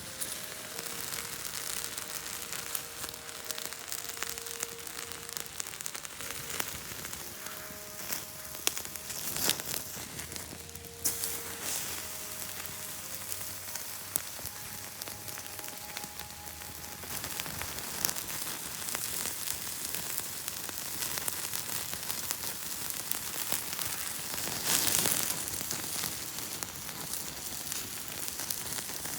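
Wood campfire crackling and hissing, with sharp pops throughout.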